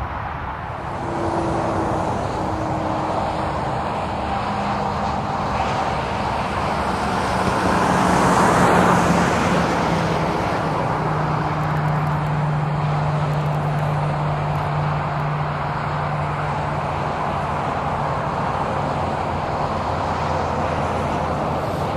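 Gulfstream business jet's two tail-mounted jet engines running at low taxi power as the jet moves past close by and onto the runway. The sound swells to its loudest about eight or nine seconds in as the jet passes, then settles into a steady low engine hum.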